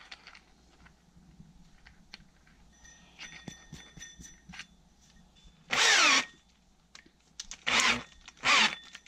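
Makita 18V cordless drill run in three short bursts while its keyless chuck is tightened onto a hole-saw arbor, the motor's whine falling in pitch each time as the chuck clamps down. Before the first burst there are light clicks of the metal parts being handled.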